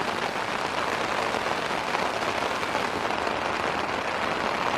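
Rain falling steadily on a tent, heard from inside the tent.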